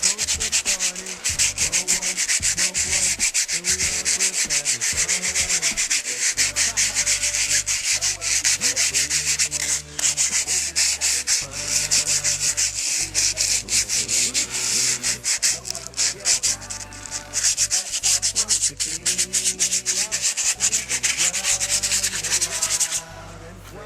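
Sandpaper scraped against the face of a freshly lathe-cut brake rotor, a continuous loud rasping that stops about a second before the end. This is the finishing step that takes out the grooves the lathe cut leaves, giving the rotor a non-directional finish.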